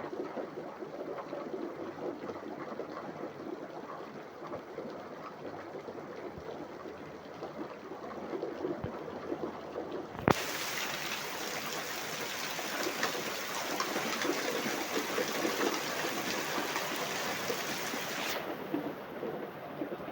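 Steady rain, a continuous hiss of falling water. About ten seconds in there is a sharp click, and the rain turns louder and brighter for about eight seconds, then drops back.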